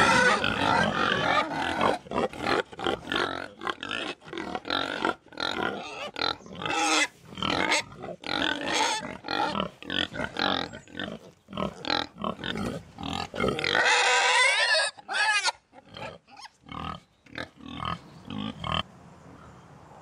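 Several pigs grunting in short, irregular bursts, with a longer, higher-pitched squeal about three-quarters of the way through.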